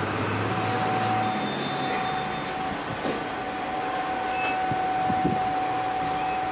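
Steady hum and airy hiss inside an elevator car, from its ventilation or machinery, with a thin steady tone that joins about half a second in. A few faint clicks sound over it.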